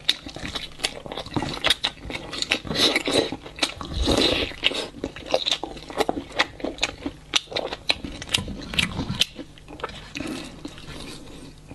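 Close-up mouth sounds of someone gnawing braised meat off a large rib bone: wet smacking, sucking and crunching clicks in an irregular stream, quieter near the end.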